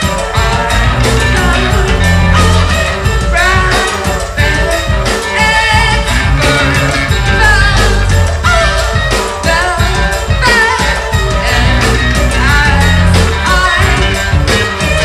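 Live noise-rock band playing loud: a drum kit hit rapidly under held bass notes and electronics, with a lead vocal singing wavering lines over the top.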